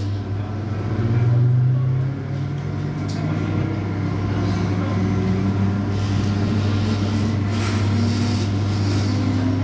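MTR East Rail Line MLR electric train pulling out of a station: a steady low hum from the traction equipment, with motor tones that rise in pitch near the end as the train picks up speed.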